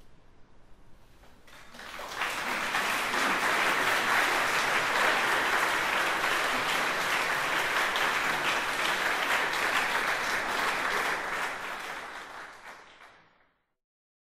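Audience applause after a choral performance, starting about two seconds in, holding steady, then fading out near the end.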